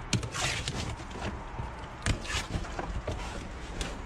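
Junk being handled and shifted around in a dumpster: scattered knocks and clatters, with two short rustling scrapes, the first within the first half-second and the second about two seconds in.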